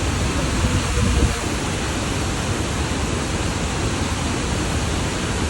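Steady rush of wide cascading waterfalls, a dense even wash of falling water heavy in the low end, with a brief louder low rumble about a second in.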